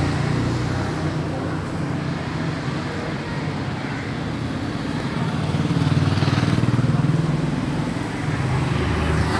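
Street traffic with a motor vehicle engine running close by, getting louder about six to seven seconds in.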